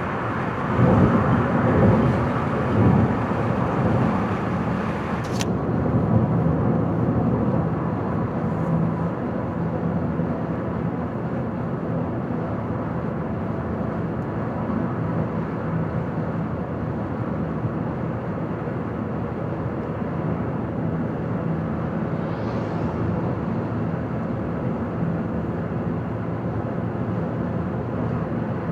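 A car driving on a highway: steady road and tyre noise with a low engine hum, louder for the first few seconds, with one sharp click about five seconds in.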